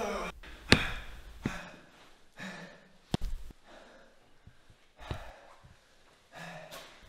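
Several sharp knocks and thuds, the loudest a little under a second in and a quick cluster a little after three seconds, with a person's short heavy breaths between them.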